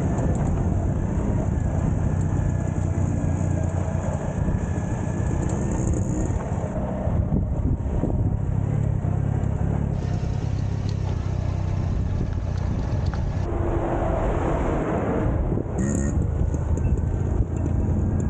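Small motorcycle engine running steadily as it carries two riders along a dirt track.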